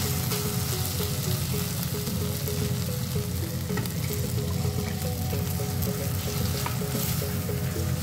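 Shredded chicken filling sizzling in a hot pan as a silicone spatula stirs and scrapes through it, with small scraping clicks. A simple background melody plays underneath.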